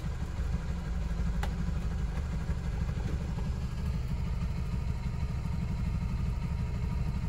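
Steady low rumble of vehicle engines idling, heard from inside a car's cabin, with one short click about a second and a half in.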